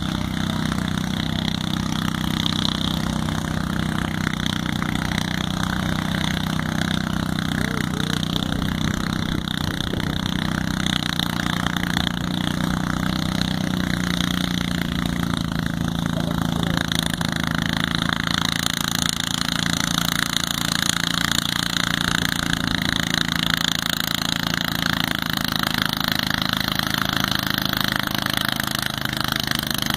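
Small lawn tractor engine running steadily under load as it pulls a weight-transfer sled, growing harsher about two-thirds of the way through.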